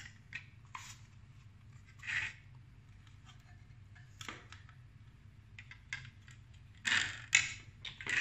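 Scattered small clicks, scrapes and light knocks of hands handling an ASUS GTX 1070 Turbo's plastic blower shroud and circuit board while plugging the fan cable into the board. The loudest few come close together about seven seconds in.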